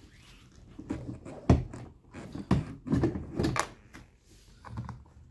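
Massage chair side armrest being slid down into the chair's body frame: a run of knocks and clunks, the loudest about a second and a half in.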